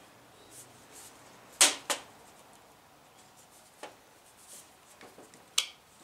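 A few sharp clicks and taps of small metal parts being handled while nuts are threaded onto a door handle assembly's screws by hand: two close together about a second and a half in, a fainter one near four seconds, and another near the end.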